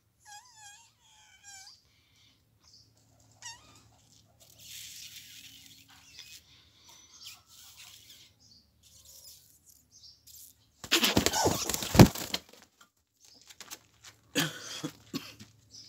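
Egg-bound hen held in the hands while a stuck egg is eased out of her, giving a few short calls at the start and rustling, then flapping her wings hard for about a second and a half a little after the middle, with a few shorter flaps near the end.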